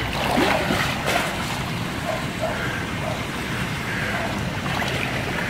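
Swimming-pool water splashing and sloshing as a person swims through it, kicking and stroking.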